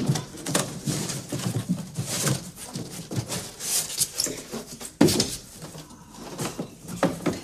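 Polystyrene packing blocks and a cardboard box being handled: irregular squeaks, scrapes and rustles as the packing is pulled out of the box, with a sharp knock about five seconds in.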